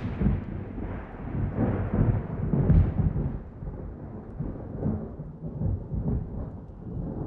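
Deep rumbling noise like thunder. It swells again about three seconds in, then slowly fades.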